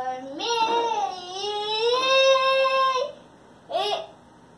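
Toddler singing a long wordless note that glides up, dips, then rises again and holds high for about a second before breaking off, followed by one short note near the end.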